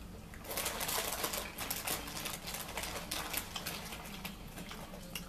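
Crinkling and crackling of a plastic chip bag being handled close by. It is dense for about three seconds, then thins to scattered crackles.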